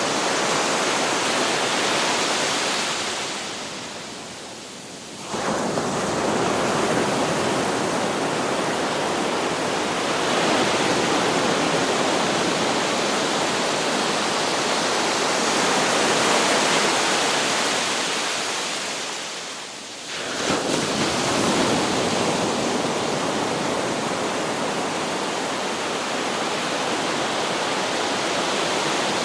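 Sea surf washing on a beach, a steady, full rush of water noise. It fades away twice, a few seconds in and again about two-thirds of the way through, and each time surges back abruptly.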